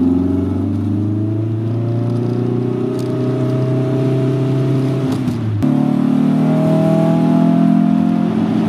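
1983 VW Rabbit GTI engine heard from inside the cabin, pulling under acceleration with its note rising steadily. About five seconds in it drops out briefly with a click, then pulls again with the pitch climbing.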